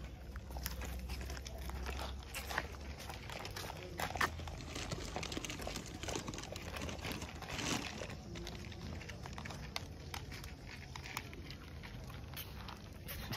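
Dogs eating dry kibble from plastic bowls: scattered small crunches and clicks.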